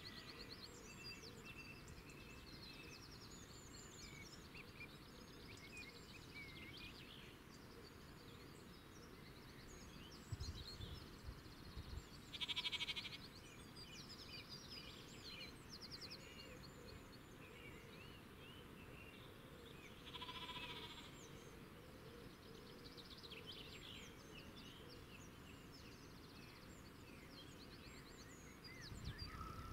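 Faint outdoor ambience of small birds chirping, with two louder animal calls of about a second each, around twelve and twenty seconds in. A low rumble comes at about ten seconds and again near the end.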